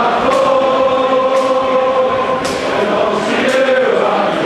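Football crowd singing a chant together in the stand, many voices holding long drawn-out notes, with a few short sharp noises among them.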